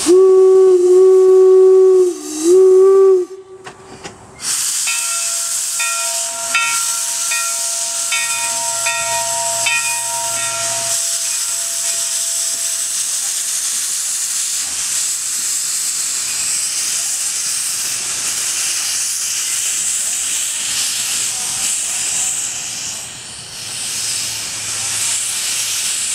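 1875 Baldwin 4-4-0 steam locomotive's whistle blowing two loud blasts, the second dipping in pitch, over about the first three seconds. Then steady steam hissing from the engine, with a fainter whistle-like tone over it for several seconds.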